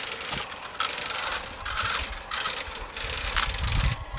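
New Bright Bigfoot R/C monster truck's electric drive motor and gearbox whirring in short stop-start spurts as the throttle is worked, with its tyres on gravel.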